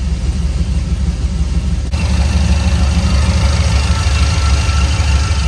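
Engine of a 1953 Chevrolet truck running steadily at idle on newly installed Holley Sniper throttle-body fuel injection while its ignition timing is checked with a timing light. About two seconds in, the sound abruptly gets brighter and a little louder.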